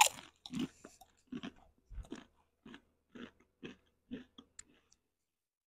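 PopCorners Sweet Chili popped-corn chips being bitten and chewed: one loud crisp crunch of the bite at the start, then fainter crunches of chewing about twice a second that die away before the end.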